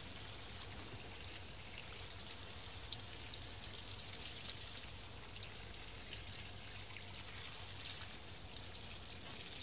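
Water sprinkling from a watering can's rose head onto potted plants and potting mix: a steady hiss of spray with many small ticks of falling drops.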